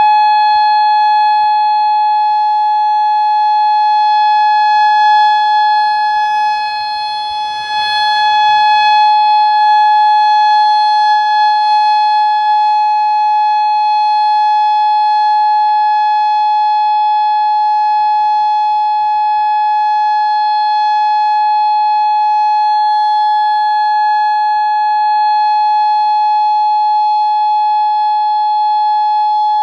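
Federal Signal Modulator (MOD8032B) outdoor warning siren sounding a steady, unwavering tone for its monthly test. Its loudness dips briefly about seven seconds in.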